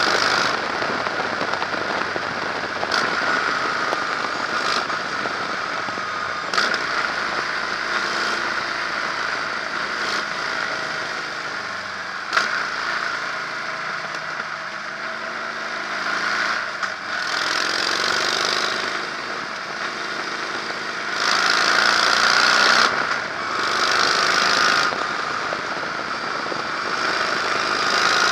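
Harley-Davidson Electra Glide's air-cooled V-twin engine running under way, heard with heavy rushing wind on the microphone. The engine note rises and falls in the middle stretch, and there are louder swells later on and a few sharp clicks.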